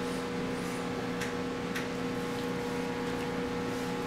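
Steady low electrical hum, with a few faint clicks of eating utensils.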